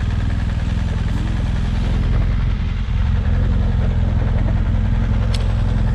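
BMW adventure motorcycle's engine running steadily as the bike rolls slowly along, with one sharp click near the end.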